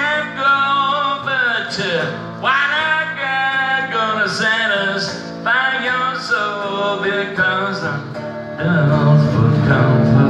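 Flying V electric guitar playing a blues break between verses, with long held, bending notes; the sound grows fuller and louder about nine seconds in.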